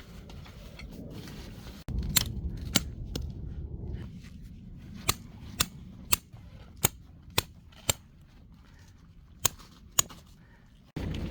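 A series of about eleven sharp, short clicks at uneven intervals of roughly half a second to a second, over a low background hum.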